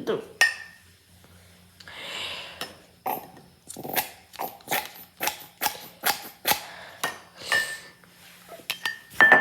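Hard objects being handled on a tabletop: a run of clinks and knocks, about two a second, some with a brief ring, like glass and plastic lab pieces and a mug being moved and set down.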